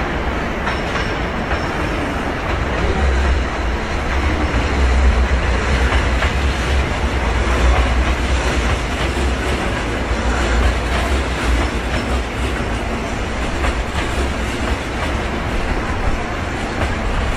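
Hankyu 1000 series electric train running on a nearby track: the rumble and clatter of its wheels on the rails, loudest from about three to eleven seconds in.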